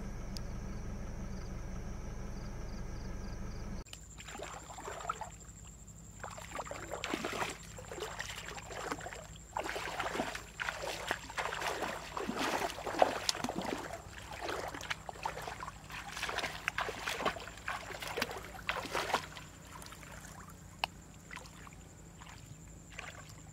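Feet wading through shallow floodwater among weeds: irregular sloshing and splashing with each step. For about the first four seconds a steady hum is heard instead, and it cuts off suddenly.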